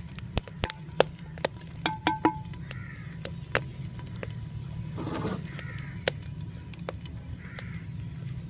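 Irregular sharp crackles and pops, a few a second, over a low steady background: a wood fire burning under a clay cooking pot while the tomato masala fries in oil inside it.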